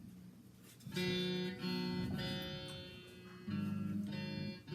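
Guitar strumming chords, starting about a second in, each chord struck and left ringing before the next.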